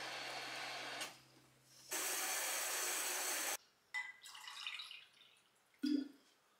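Tap water running, shut off about a second in, then running again for about a second and a half before it is turned off. A few light clinks of dishes follow, with one louder knock near the end as something is set down.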